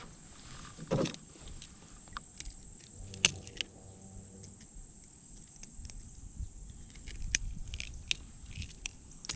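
Scattered clicks, taps and knocks of fishing gear being handled in a kayak, with a thump about a second in and a sharp click about three seconds in, over a steady high-pitched tone.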